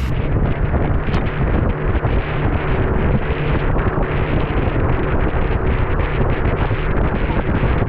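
Small boat under way, its motor running steadily under heavy wind buffeting on the microphone.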